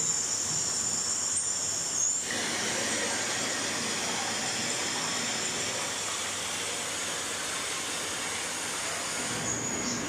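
Steady rushing of water from artificial waterfalls and streams into ponds. A few high, thin steady tones sound over it and stop about two seconds in.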